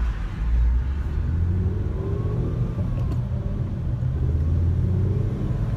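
Car engine and road rumble heard from inside the cabin while driving, a steady low rumble with the engine note rising and falling slightly midway.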